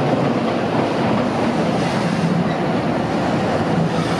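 Purple Randen tram of Kyoto's Keifuku Arashiyama line rolling slowly into the station, its wheels running steadily on the rails.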